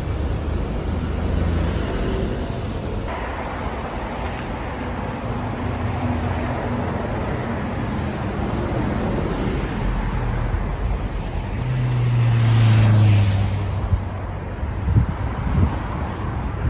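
Road traffic noise: cars running steadily, with one vehicle growing louder and passing close about twelve seconds in.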